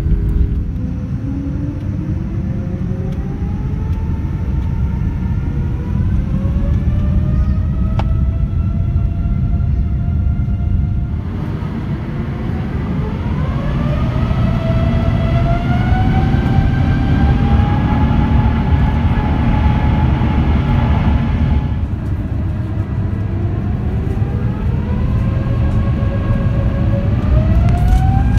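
Rolls-Royce Trent turbofan jet engines spooling up under a heavy low rumble, their whine rising steadily in pitch. There are three successive spool-ups, with abrupt changes about a third and two thirds of the way through.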